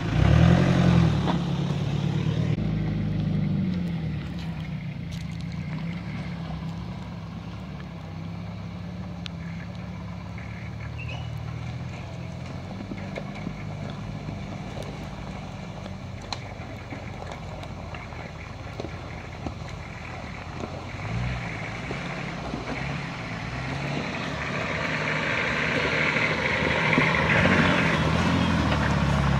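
Off-road 4x4 engines: a Toyota Land Cruiser revs up as it pulls past at the start, then fades. Later a Nissan Patrol's engine is heard working up a rocky track, growing steadily louder as it nears over the last several seconds.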